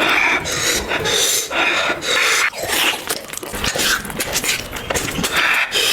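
Close-miked eating of hor fun noodles: a quick run of loud, breathy slurps, roughly two a second.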